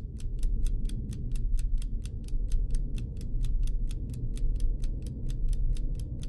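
Background music with a steady low bass bed and a fast, even ticking beat, about five ticks a second.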